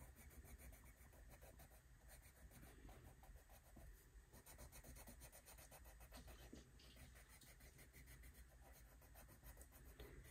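Faint colored pencil rubbing on paper in quick back-and-forth strokes, shading in a box on a printed chart.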